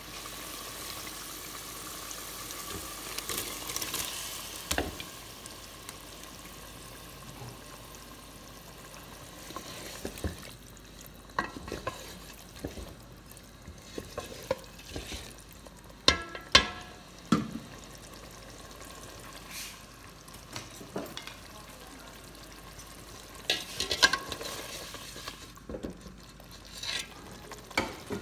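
Small fish frying in hot oil and curry gravy in a pan, sizzling, loudest in the first few seconds. Sharp knocks of a spatula against the pan come now and then as the curry is stirred.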